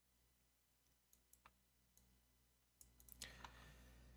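Near silence, broken by a few faint, isolated computer keyboard keystrokes.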